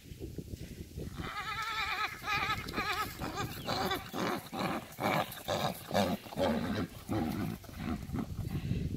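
Horse whinnying: a long neigh with a quavering pitch starting about a second in, followed by a run of shorter calls.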